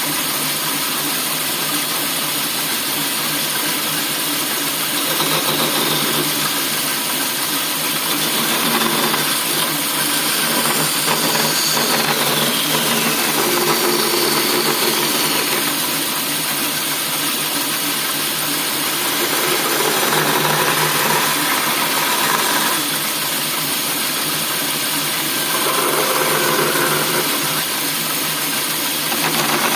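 Homemade bandsaw running steadily, its noise swelling for stretches of a few seconds at a time.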